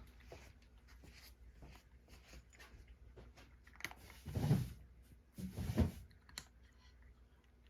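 Cat eating dry kibble topped with bonito flakes: small irregular crunches and clicks, with two louder rustling noises around the middle.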